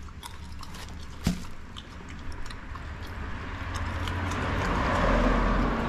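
A passing vehicle: a rushing noise with a low rumble that swells over a few seconds and eases off near the end, over scattered light clicks and a knock about a second in.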